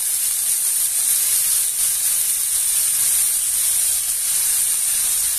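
Large peeled shrimp sizzling in olive oil in a hot nonstick grill pan, a steady high hiss. They are frying undisturbed to brown, not stewing in their own water.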